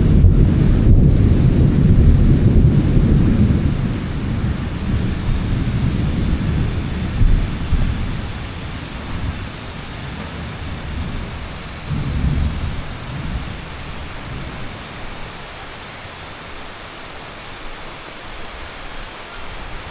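Thunder over heavy monsoon rain. A loud low rumble breaks in at the start, holds for a few seconds, then fades away over about ten seconds, with a smaller swell of rumble about twelve seconds in, all over a steady hiss of rain.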